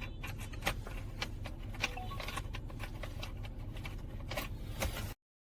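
Small metallic clicks and taps of screws and a screwdriver being handled while screws go into a radio console bracket, over a steady low hum. The sound cuts off abruptly near the end.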